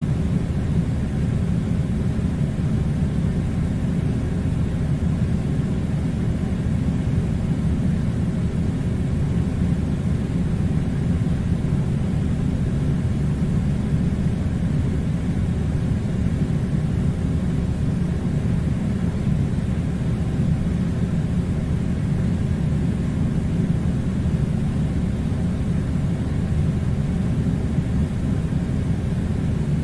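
Air conditioner running: a steady, even low-pitched noise that does not change.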